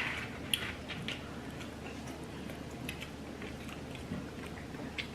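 Close-miked chewing of a deep-fried shrimp with its shell still on, with scattered faint crunches.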